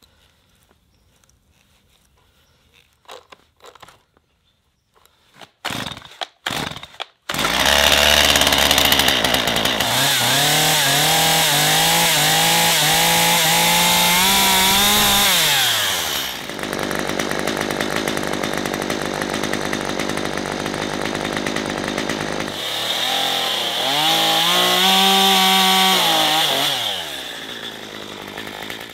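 Stihl two-stroke chainsaw starting about seven seconds in after a few knocks and clicks, then revved up and down twice while held running, dropping back near the end.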